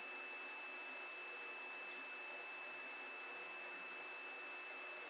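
Multimeter continuity buzzer giving one faint, steady high-pitched beep that does not break off, signalling a short between the rotor and stator plates of the radio's tuning capacitor. A small click comes about two seconds in.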